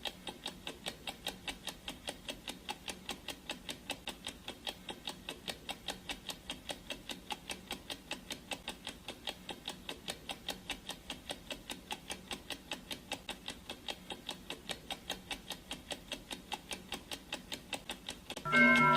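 Clock ticking sound effect, rapid and even. Near the end, a gong is struck once and rings on, fading slowly: the timer's signal that two minutes are left.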